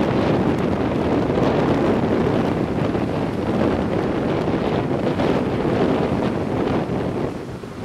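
Strong wind buffeting the camera microphone, over the rush of breaking surf. It eases briefly near the end.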